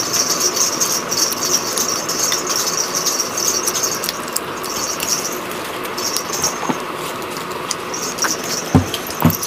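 Faint noise of two people eating chowmein with spoons from disposable paper plates, under a steady high-pitched hiss that fades in and out. Two dull thumps come near the end.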